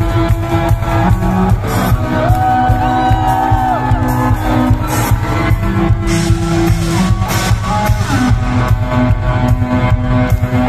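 Live band playing loud amplified music with electric guitar over a heavy bass, heard from inside a crowd, with shouts from the audience.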